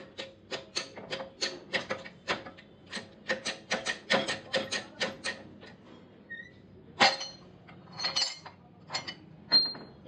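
Steel parts on a hydraulic press bed being worked: a fast, irregular run of sharp metal taps, about four a second, for the first half. Then three louder single metal clanks, the last of which rings briefly.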